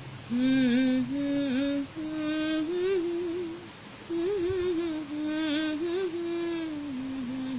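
A woman humming a slow tune, holding long, wavering notes in a few phrases with short breaks between them.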